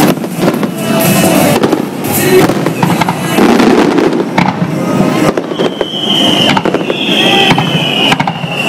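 Fireworks display: a dense run of bangs and crackling from aerial shells bursting, joined about two-thirds of the way in by several high whistles that fall slightly in pitch.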